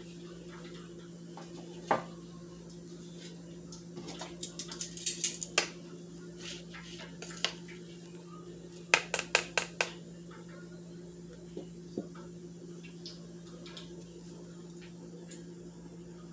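Stainless steel kitchen tongs clicking and tapping against each other and a plastic breading bowl as floured chicken pieces are picked out. There is a single click about two seconds in, a patter of clicks around five seconds, and a quick run of sharp clicks about nine seconds in, over a steady low hum.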